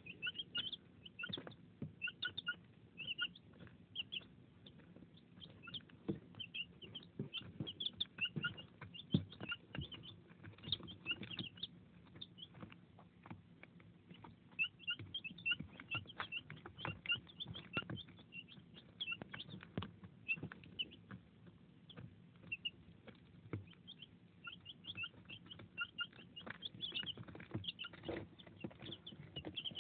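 A brood of young chicks peeping throughout in short, high chirps, mixed with quick taps and clicks of their beaks pecking at a plastic trough feeder.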